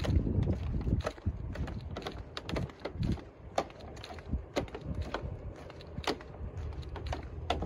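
Footsteps on a wooden boardwalk, about two steps a second, each a sharp knock on the planks. Wind rumbles on the microphone, strongest around the start.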